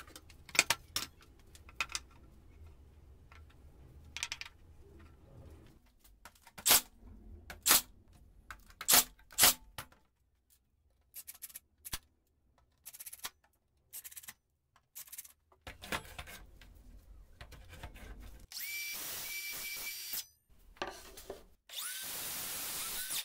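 Knocks and clatter of handling, then a cordless impact driver running in short bursts, driving screws through a circular saw's base plate into a board. Near the end a cordless Greenworks circular saw runs in two spells of about two seconds each, the second starting with a rising whine as the blade spins up.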